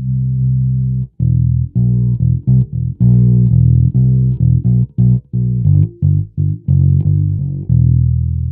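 Short-scale fretless electric bass played through a small VOX practice amp with tiny speakers, no effects. It plays a line of plucked low notes with brief gaps between phrases.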